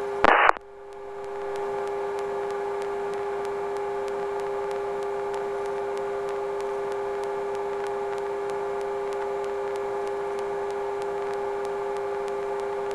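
Sikorsky S-58T helicopter's twin turboshaft engines and transmission running in steady cruise, a constant whine with a clear pitch. A short burst of noise comes about half a second in.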